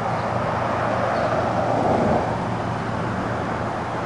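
Caboose of a passenger train rolling past on the track, a steady noise of wheels and running gear with a low hum under it, swelling about two seconds in and easing off.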